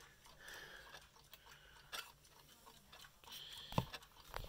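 Faint scattered clicks and small knocks of things being handled, with a sharper click about two seconds in and two louder knocks near the end.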